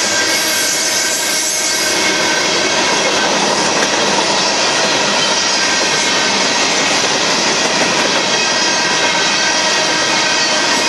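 Union Pacific manifest freight train's cars rolling past close by: a steady, loud noise of steel wheels on rail, with faint steady high tones over it.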